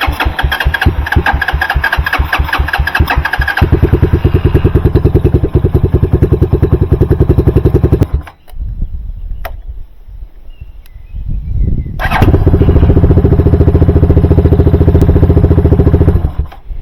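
A vehicle engine being cranked by the starter motor off a jump-starter pack on a weak battery, with even cranking pulses, catching about four seconds in and running until it stops about eight seconds in. About twelve seconds in it runs again for roughly four seconds, then stops.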